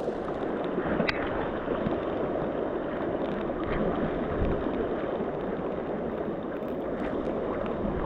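A river rushing steadily, a continuous hiss of flowing water, with a faint click about a second in.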